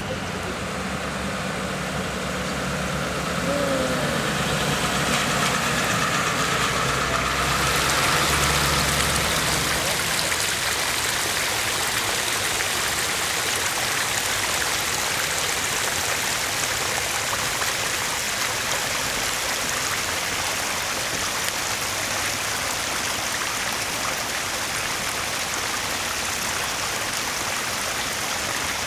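A vehicle engine idles in the first several seconds. After that a steady, even rush of water runs on.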